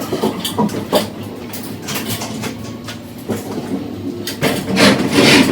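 Whirlpool washing machine being tipped over: its cabinet rattles and knocks, with scraping that swells near the end.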